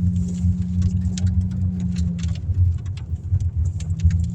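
Rain striking a car's body and windshield as irregular sharp ticks, over the low steady rumble of the car and its tyres on a dirt road. A low engine hum drops away about halfway through and comes back near the end.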